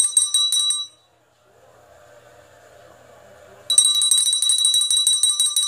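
A bell ringing in a fast trill of rapid strikes, in two bursts: the first stops about a second in, and the second starts just before four seconds in.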